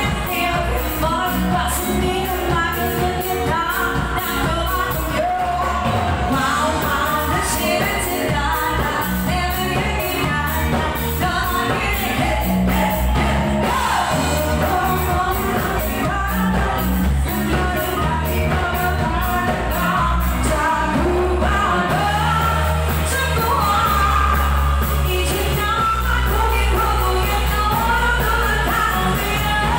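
Live pop band playing loudly, with vocalists singing into microphones over drums, electric guitar and keyboard, and a steady beat on the cymbals.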